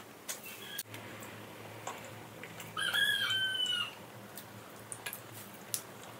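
A rooster crowing once, a call of about a second in the middle, held and then falling slightly at the end, with faint scattered clicks around it.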